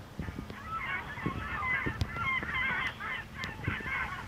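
A flock of birds calling in quick, overlapping chirps, with a few low thumps underneath.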